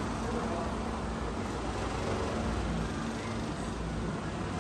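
Steady room ambience: an even hiss with a low, steady hum underneath and no distinct sound standing out.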